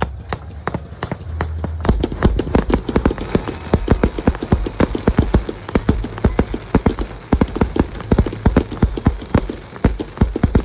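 Fireworks crackling and popping: a dense run of sharp cracks, many a second, with some low thuds. It thickens about two seconds in as a firework cake fires tailed shells that burst into crackling stars.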